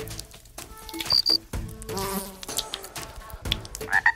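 Buzzing insect sound effects, fly- and mosquito-like, mixed with short high chirps and clicks.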